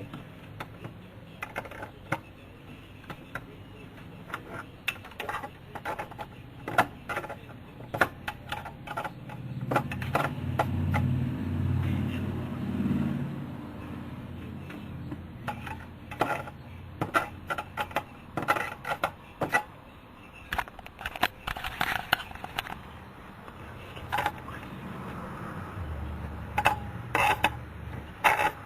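Small metal instrument-mounting hardware and hand tools being handled on an aircraft instrument panel: a long run of light, irregular clicks and taps. A low hum joins in for a few seconds around the middle.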